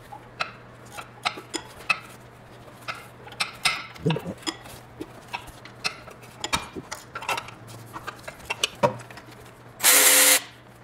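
Hand tools clinking and knocking as sockets and an extension are fitted and worked on a bolt, then near the end a short burst of a power tool spinning a bolt loose on the engine mount bracket.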